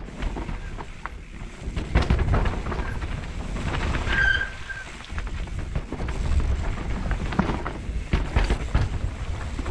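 Mountain bike descending a dirt forest singletrack, heard from a camera on the rider: wind rumble on the microphone, tyres rolling over dirt and roots, and the bike rattling and knocking over bumps. A short high squeak sounds about four seconds in.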